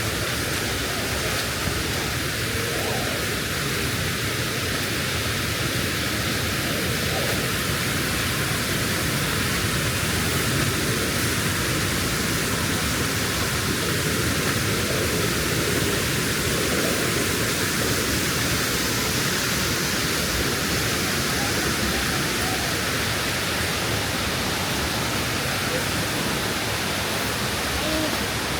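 Steady rush of flowing river water, an even hiss that runs unchanged throughout.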